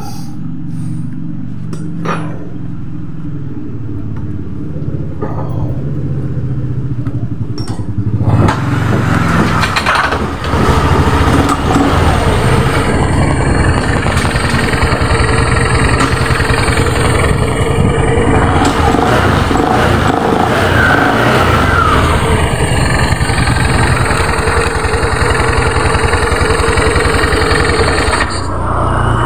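Honda automatic scooter engine running with the CVT cover off, the drive belt and rear pulley spinning on a freshly replaced rear pulley bearing. It idles at first, runs at higher revs from about eight seconds in, and drops back near the end.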